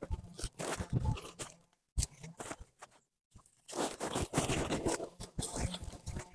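Crinkling, crunching rustle of a manure sack being gripped and lifted, in uneven bursts with a short break a little past the middle.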